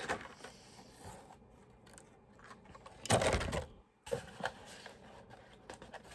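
A plastic toy and its packaging being handled: faint rustling, a louder rustle about three seconds in, then a few light clicks.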